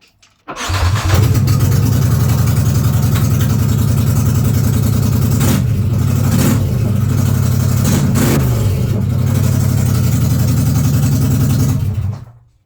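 Polaris Sportsman 850's twin-cylinder engine starting up through straight headers with no muffler, then running loud at idle. A few quick throttle blips come around the middle, and the engine is shut off near the end.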